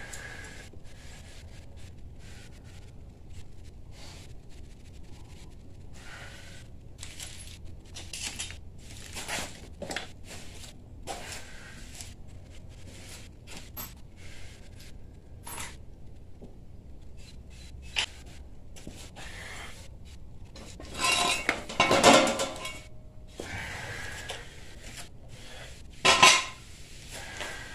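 Scattered metallic clinks and knocks of hand tools and steel parts being handled. A loud clattering run of metal knocks comes a little over two-thirds of the way through, and a single sharp clank near the end.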